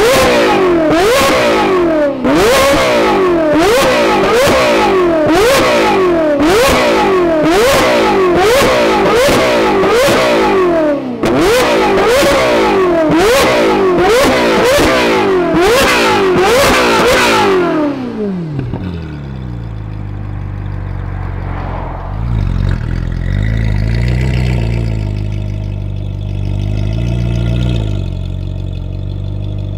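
A Ferrari 458 Italia's 4.5-litre V8, breathing through a Kline Innovation exhaust, is revved in quick repeated blips, a little under two a second, each rising sharply and snapping back. After about eighteen seconds the pitch falls away to a low, steady idle, blipped lightly twice near the end.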